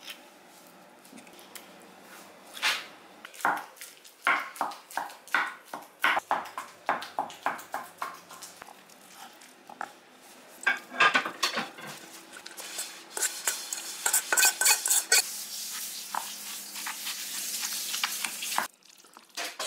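A metal spoon and a wooden pestle work avocado in a ridged ceramic mortar (suribachi), making a series of separate taps and knocks on the ceramic. From about two-thirds of the way in, a denser, steadier wet stirring and scraping follows as the mash is mixed, and it stops abruptly near the end.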